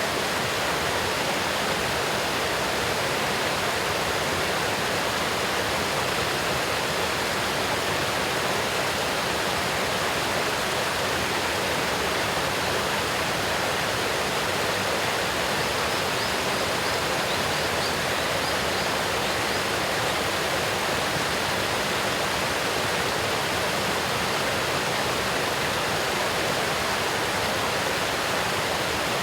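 Waterfall: water pouring steadily, an even, unbroken rushing hiss.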